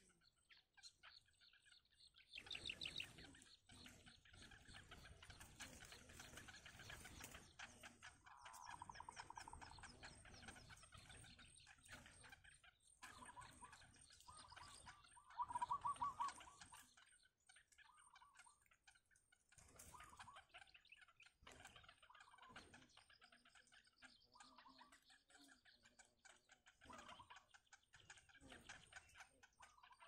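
Faint rapid ticking chatter of bittern nestlings begging at the nest, coming in several short bursts. The loudest burst comes just past halfway.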